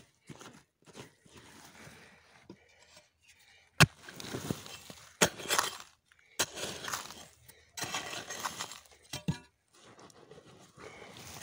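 Bare hands scraping and digging through dry, stony soil, clods and pebbles tumbling, with a few sharp knocks of stone on stone, the loudest about four seconds in.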